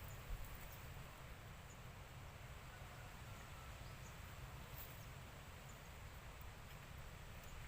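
Faint outdoor ambience: a steady low rumble and hiss, with a few faint, short high chirps.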